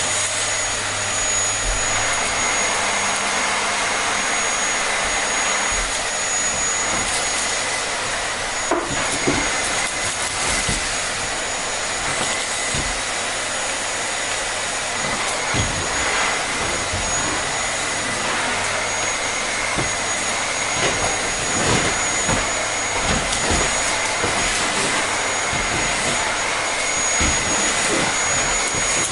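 Vacuum cleaner running steadily: a constant rushing airflow with two steady high whining tones over it, and scattered short low knocks.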